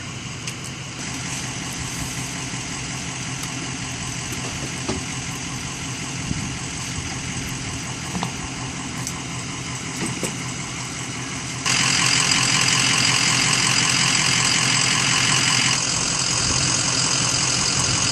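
Trailer-mounted sewer hydro jetter's engine running steadily, with a hiss over it; the sound steps up, louder and brighter, about two-thirds of the way through.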